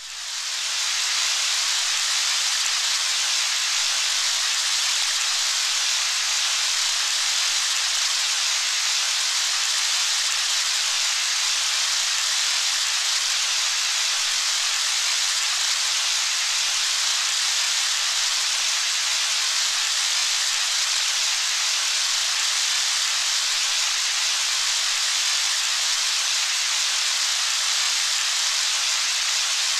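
Rain falling steadily: a dense, even hiss with no separate drops heard. It fades in over the first second.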